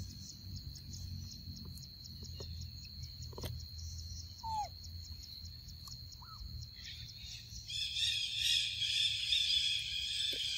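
Forest ambience of buzzing insects: a steady high drone, joined by a louder buzzing chorus about eight seconds in, with two short chirping calls and a few faint clicks in between.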